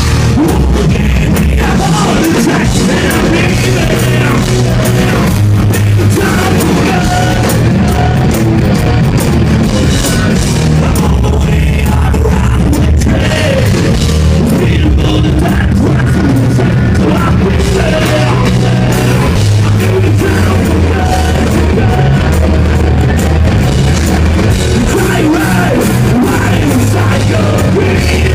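Hard rock band playing live at full volume, with a driving bass line, drums and singing.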